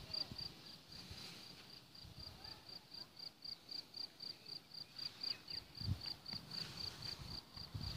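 A cricket chirping in a steady, even rhythm of about three to four high chirps a second. A few low thumps come near the end.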